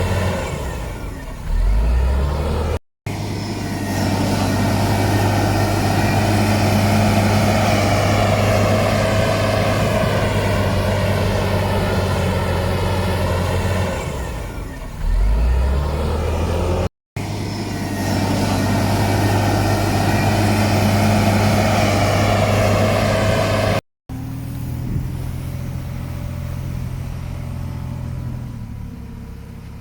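Heavy earthmoving machine's diesel engine running hard under load, its pitch sagging and recovering twice. The sound is cut off abruptly three times and runs quieter near the end.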